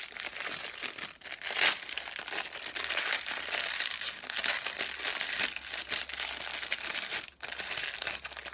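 Crinkly toy wrapper being pulled open and handled, crackling unevenly throughout, loudest about two seconds in, as a small LOL Surprise doll is unwrapped.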